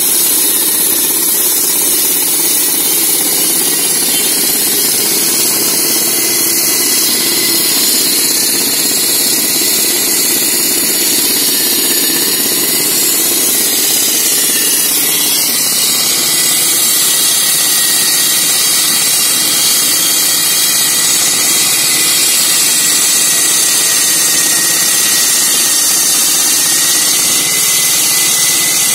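Walk-behind petrol road saw running steadily, its water-cooled blade grinding a cut into a wet road surface. There is a loud, even grinding hiss over the engine's drone, with a faint, slightly wavering whine.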